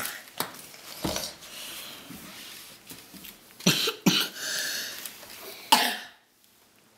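A young child coughing in short, sharp bursts: once about a second in, twice close together in the middle, and once more near the end.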